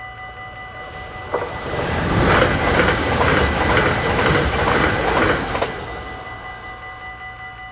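A train passes a Dutch level crossing. Its loud rush builds from about a second in and dies away about four seconds later, with a sharp click as it starts and another as it ends. The crossing's warning bell rings in quick repeated strokes throughout, standing out again once the train has gone.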